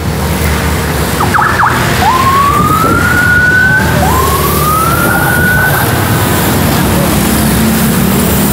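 Vehicle siren sounding a series of rising whoops, each climbing in pitch and then holding for a second or two, after a few short chirps, over steady noise.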